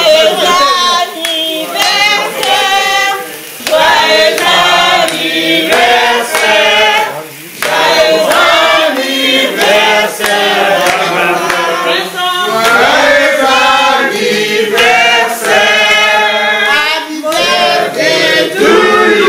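Several voices singing a birthday song together, with short breaks about three and a half and seven and a half seconds in.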